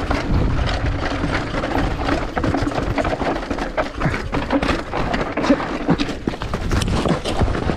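GT Fury downhill mountain bike running fast over loose rock. The knobby tyres crunch over stones and the chain and frame clatter in a continuous stream of knocks.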